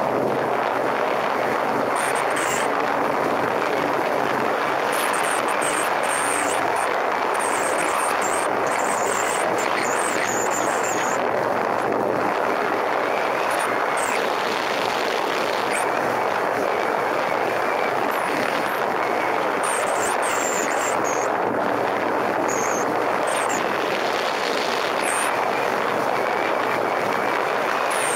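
Motorcycle running steadily at road speed: a constant engine drone under a heavy rush of wind noise over the camera.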